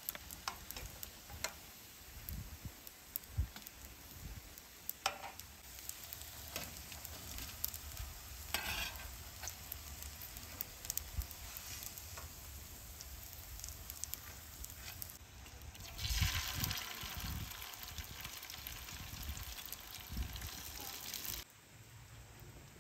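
Stuffed reshte khoshkar pastries frying in a pan with a steady sizzle, with scattered light clicks and taps as pieces are lifted out onto a metal tray. The sizzle grows louder about three-quarters of the way through, then cuts off suddenly near the end.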